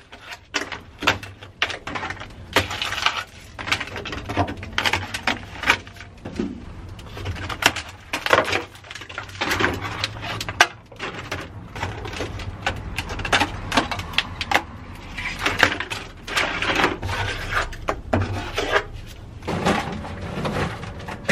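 Dry-ice-frozen sound-deadening mat cracking and snapping as it is broken off a Datsun 210's steel floor pan, with pieces clattering onto the metal. Irregular sharp cracks and knocks, at times several a second.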